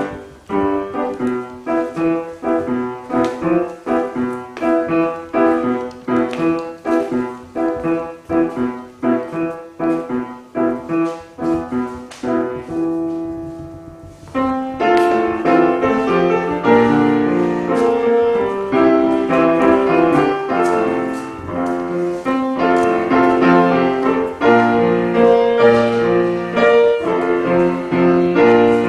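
Solo piano playing instrumental music: a bouncy phrase of short, detached notes, which pauses on a held chord about halfway through. Fuller, more sustained playing follows.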